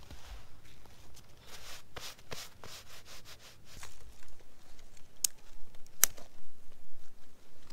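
Rustling and scraping as sticks and kindling are handled at a small stick fire lay on snow, with two sharp cracks about five and six seconds in.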